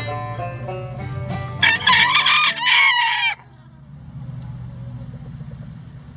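A rooster crows once, loud and lasting nearly two seconds, starting about a second and a half in, as the tail of banjo music fades out beneath it.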